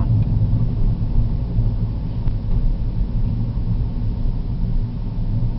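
Steady low rumble of a car driving along a paved street, heard from inside the cabin.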